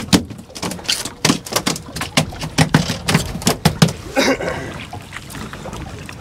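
A freshly landed dorado (mahi-mahi) flopping on a boat's deck: a quick, irregular run of slaps and knocks through the first four seconds or so, then it settles to the wash of water and wind.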